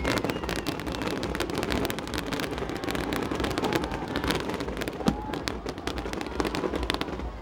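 Aerial fireworks crackling: a dense, steady run of many small rapid pops.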